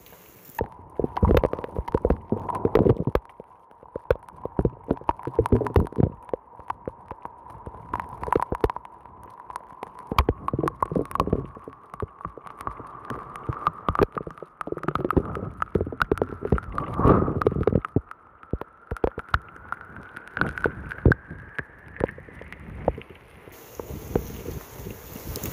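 Night thunderstorm heard through a sock-wrapped phone tied to a window: gusts of wind buffet the microphone in rumbling bursts, with dense crackling hits of rain. A thin whistle holds one pitch, climbs slowly in the second half and stops near the end.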